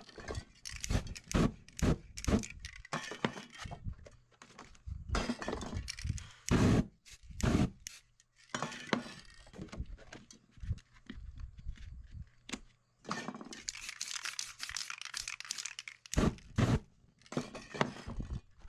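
Spray-painting work at a canvas: a fast, uneven run of knocks, clinks and scrapes from cans and paper against the board, broken by two stretches of spray-can hiss, one about halfway through and a longer one later.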